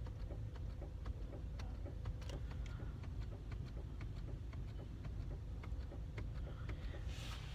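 Headlight relays clicking repeatedly, about three faint clicks a second, as the headlight dipper is worked: normal relay switching noise, not a fault.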